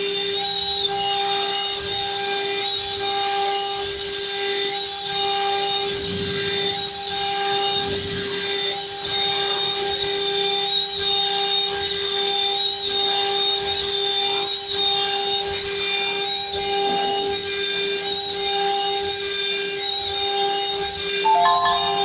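1325 wood CNC router's spindle running at a steady whine while its bit carves wood, with a hissing cutting noise over it. A few brief stepped higher tones near the end.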